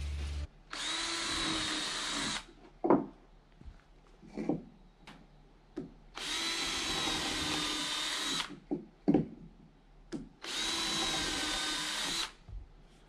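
Cordless drill running into wood in three steady bursts of about two seconds each, with a high whine. Sharp knocks fall between the bursts.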